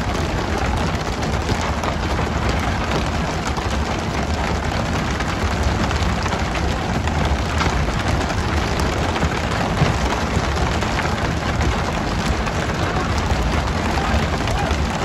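Steady hiss and splash of water spray from the stern sprayers of a pole-and-line tuna boat, with the sea churning under them. Scattered small slaps and knocks run through it, and a low rumble sits beneath.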